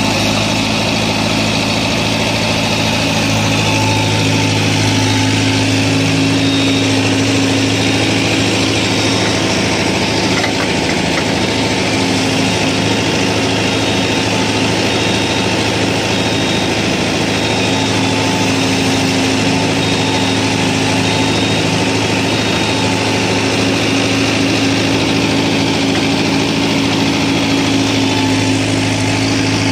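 Mahindra Yuvo 575 tractor's diesel engine running at a steady speed, driving the Bull backhoe's hydraulics as the bucket digs into the earth bank, its note swelling and easing slightly with the load.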